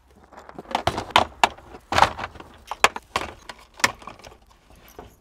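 Irregular sharp clicks, knocks and clatter of small objects being handled, starting about a second in: small wooden stick pieces picked up off a table, and a hard plastic tool case with snap latches being handled.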